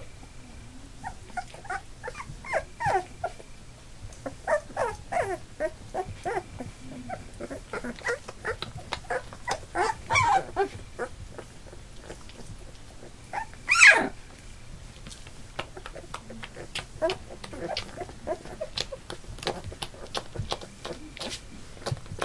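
Black Labrador puppies, nearly three weeks old, whimpering and squeaking in many short cries that fall in pitch, with one louder yelp about two-thirds of the way through.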